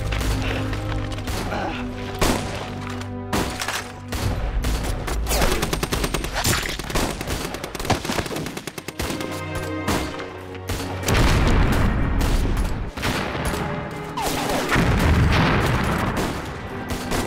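Film battle sound effects: rapid gunfire with explosions, over dramatic background music. The heaviest blasts come in the second half.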